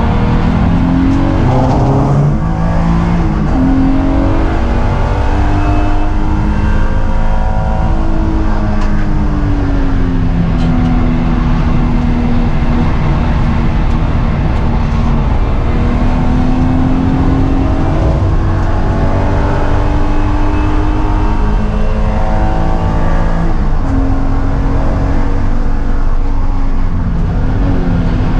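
BMW E36 M3's straight-six engine at full effort on a racetrack, heard from inside the cabin. Its pitch climbs under acceleration and drops back several times as the driver shifts gears and lifts.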